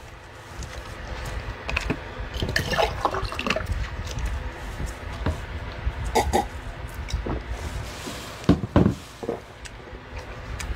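A man drinking water from a glass, with liquid sounds and scattered small clicks and knocks of the glass and tableware.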